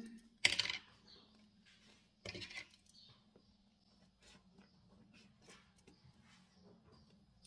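Small scissors cutting at the seal of a small cardboard box: two short scratchy cuts, about half a second in and again about two seconds in, followed by faint clicks and taps as the box is handled.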